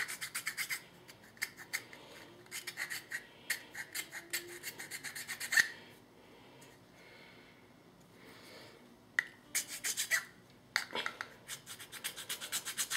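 A small precision file on a multi-tool rasping back and forth on a small part, filing it down to fit. The strokes come in quick runs, stop for about three seconds past the middle, then start again.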